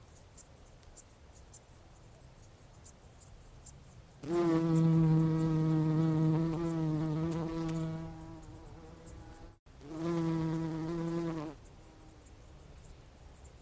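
Bumblebee buzzing in flight: a low, steady wingbeat hum starts about four seconds in and fades after several seconds. After a brief break, a second, shorter buzz follows.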